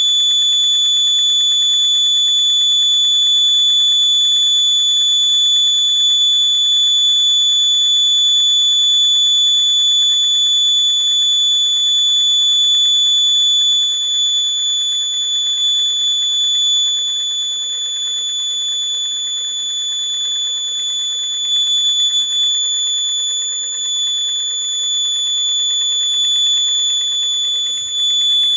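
An electronic buzzer sounds a continuous, steady high-pitched tone without a break.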